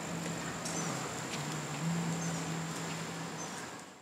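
Outdoor insect chorus: a steady high-pitched trill over a broad hiss, with a few short high chirps and a low hum that comes and goes. The sound drops away sharply at the very end.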